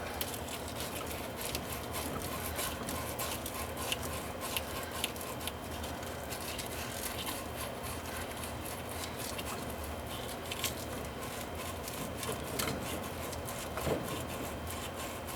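Sandpaper scrubbing a copper pipe end clean before it is fluxed and soldered: a steady, faint scratching with many small ticks and scrapes.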